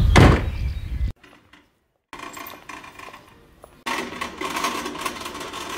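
Wind rumbling on the microphone, with a loud thump just after the start. After a short silent gap, a metal shopping trolley rattles as it is pushed across a tiled store floor.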